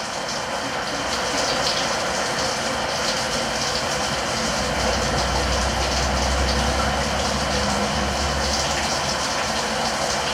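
Shower running: a steady hiss of water spray with a low rumble underneath that swells for a few seconds midway.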